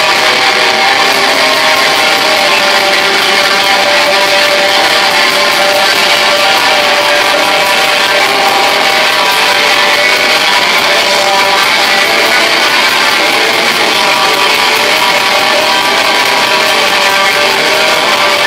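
Black metal band playing live: a loud, dense wall of heavily distorted electric guitars over drums and cymbals, running without a break.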